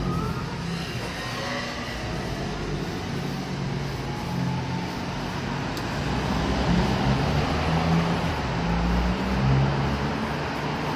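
Road traffic on a wet street: cars passing with a steady tyre hiss over a low engine rumble, growing louder in the second half.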